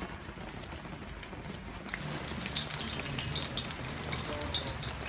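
Wood fire crackling under a steel plow-disc pan, with small sharp crackles and pops that grow thicker from about two seconds in.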